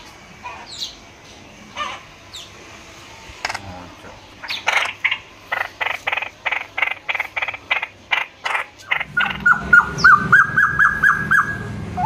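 A caged songbird giving a run of harsh, evenly spaced calls, about three a second, then a quicker string of short, higher notes near the end, with a low rumble underneath.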